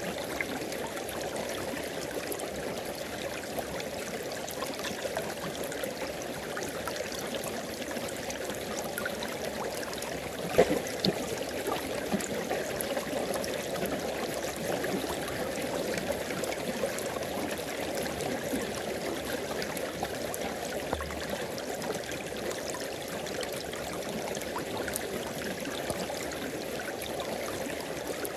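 River water flowing steadily in an even rush, with one brief sharp knock about a third of the way in.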